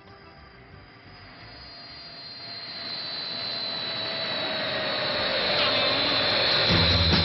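Recorded jet airliner engine sound, swelling steadily louder with a high whine and a slowly falling tone, as the intro of a rock song. The band's drums and guitar come in near the end.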